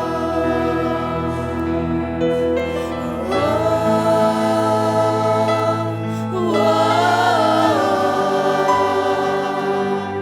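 Gospel worship music: voices singing together in long held notes over sustained accompaniment, the chord changing about every three seconds.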